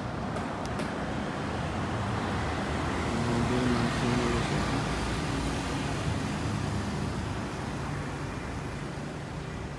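Road traffic: a vehicle passing, growing louder to a peak about four seconds in and then slowly fading.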